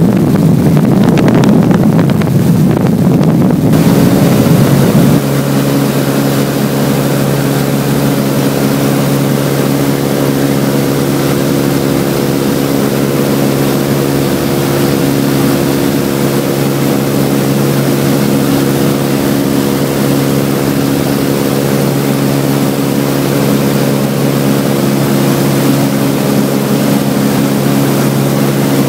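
Light aircraft's piston engine and propeller droning at a steady cruise, heard from the cabin. For the first four to five seconds a louder rush of wind noise covers it, then the steady engine hum is heard on its own.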